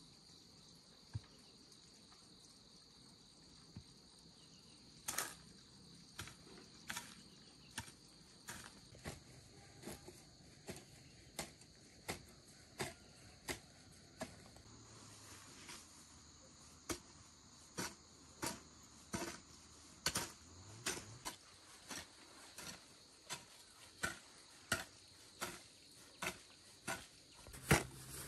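Steady high-pitched insect chorus, with a series of sharp knocks that starts about five seconds in and repeats roughly once or twice a second, growing louder near the end.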